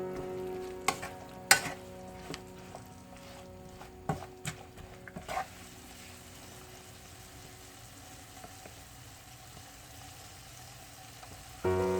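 Anchovies and shishito peppers sizzling in oil in a frying pan, with a few sharp clicks of a utensil against the pan in the first half. After that, a steady, quiet sizzle.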